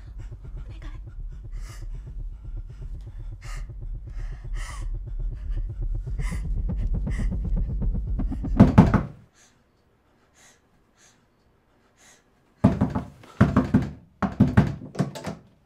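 A low rumbling drone swells for about nine seconds and ends in a loud crash, then cuts off into silence. A few seconds later come heavy, panting breaths, four or five in a row.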